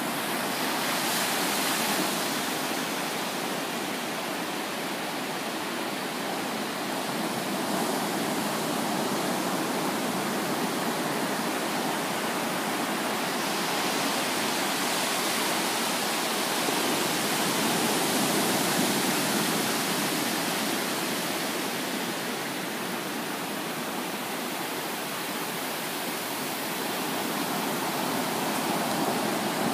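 Ocean surf breaking and washing up a sandy beach: a steady rush of water that swells and eases every several seconds.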